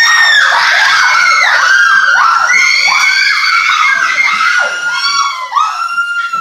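A person screaming at a very high pitch: a continuous run of shrieks, about two a second, that dies away near the end.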